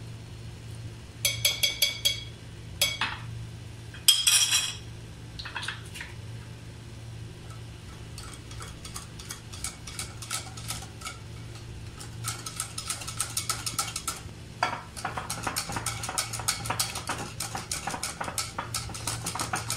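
Wire whisk beating pancake batter in a cut-glass bowl to work out the lumps: a fast run of clicking and scraping as the wires hit the glass, getting busier in the second half. A few ringing clinks of metal on the glass bowl come in the first five seconds.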